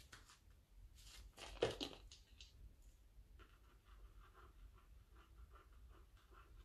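Quiet scratching and handling of art materials on a paper journal page, with a brief louder handling noise about a second and a half in.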